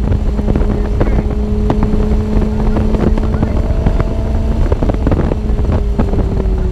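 Lotus Elise 111R's Toyota four-cylinder engine through a Larini Stage 2 exhaust, running at steady high revs under load, its pitch sagging slightly near the end. Heavy wind buffeting on the microphone of an unencased action camera in the open car covers it, with frequent sharp clicks.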